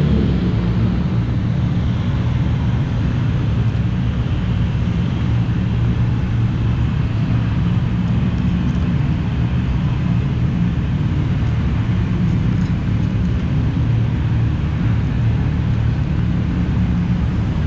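A car engine running at an even, steady drone with no change in pitch.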